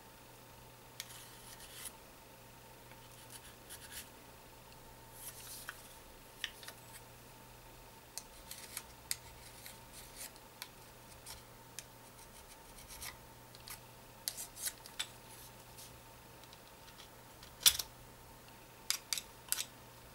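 A small screwdriver working against the plastic housing of a handheld РМГ-1 tape head demagnetizer: scattered light scrapes and clicks, with one sharper click near the end and a quick run of clicks after it.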